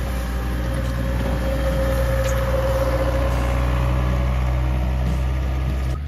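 Front loader's diesel engine running steadily under load as its bucket pushes wet snow, with a whine that swells and fades around the middle.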